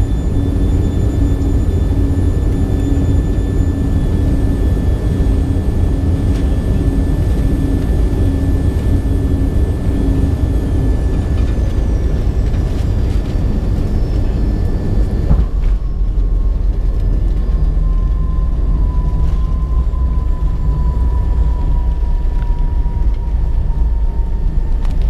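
Avro RJ100's Lycoming LF507 turbofans heard from inside the cabin on short final, whining steadily, their pitch falling as thrust comes back about halfway through. A few seconds later a sudden thump marks the touchdown, and a heavy low rumble of the landing roll follows, with one whine slowly falling in pitch.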